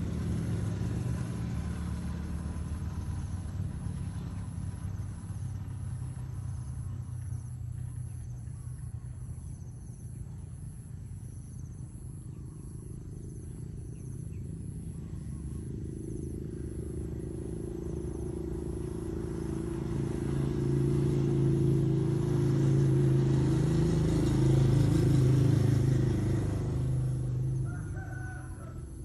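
A low engine hum that grows louder from about halfway through and falls away near the end.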